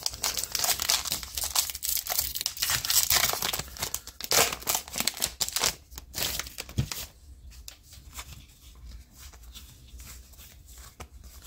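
A baseball card pack wrapper crinkling and tearing as it is opened, dense and crackly for about the first seven seconds. After that, softer rustles and light ticks as the cards are handled and sorted.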